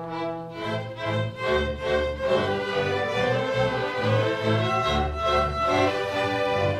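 Orchestra playing, with sustained high melody notes over deeper notes that come in about half a second in.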